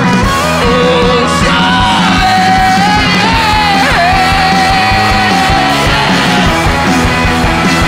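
Rock band playing live, led by a drum kit, with one high melody note held and bent over the top about halfway through.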